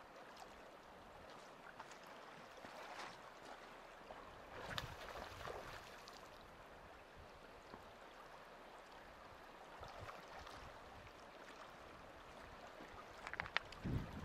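Faint, steady rush of a fast-flowing glacial river current. A few brief knocks come near the end.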